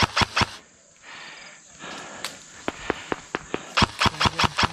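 Airsoft guns firing in sharp cracks. A few quick shots come in the first half second, then a run of rapid shots starts a little under three seconds in and comes quickest near the end.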